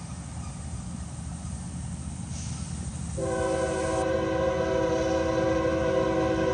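CSX diesel locomotive's air horn sounding one long, steady blast, a chord of several notes, starting about halfway in, over a low rumble.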